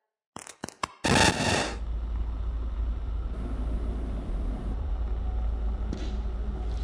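A few quick sharp clicks, then a loud burst of noise lasting under a second, settling into a steady low hum with a faint hiss.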